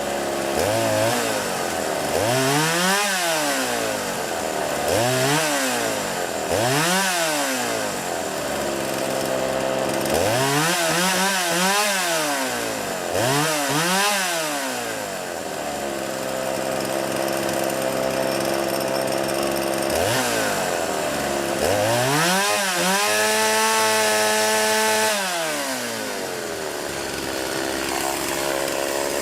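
Partner 465 two-stroke chainsaw engine revving up and down again and again in short throttle blips, with a couple of longer holds at high speed, the longest about three quarters of the way through.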